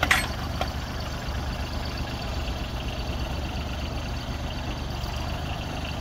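Branson compact tractor's diesel engine running steadily at low revs while it powers the BH100 backhoe through a dig, with a sharp knock right at the start and a smaller one about half a second later.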